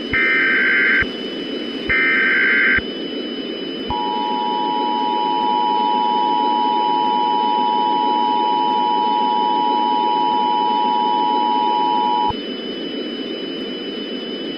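Emergency Alert System broadcast: two short bursts of SAME digital header data tones, then the EAS two-tone attention signal (853 and 960 Hz) sounding steadily for about eight seconds, all over a steady static hiss.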